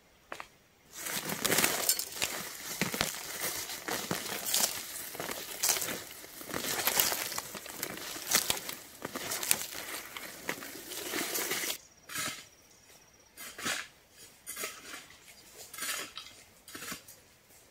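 Digging and scraping in stony, gravelly soil, with stones clinking against a metal trowel, as a plant is pulled up by its roots. About twelve seconds in the steady scraping gives way to shorter, separate scrapes.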